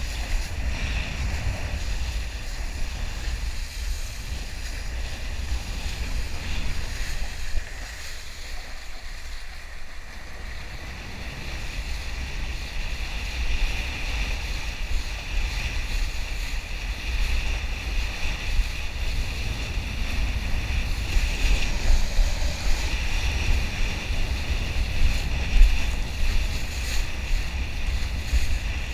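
Wind rumbling on the microphone of a kiteboarder's action camera, over the hiss of the board planing across choppy water; a little quieter for a few seconds near the middle.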